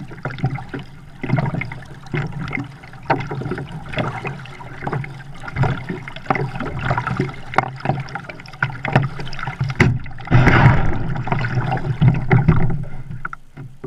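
Kayak being paddled, heard from a camera mounted on the boat: water splashing and dripping off the paddle blades, with frequent irregular knocks and clicks against the plastic hull. About ten seconds in comes a louder rushing burst lasting under a second.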